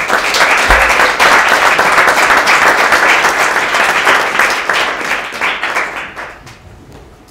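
Audience applauding, a dense clapping that starts at once and dies away over the last two seconds.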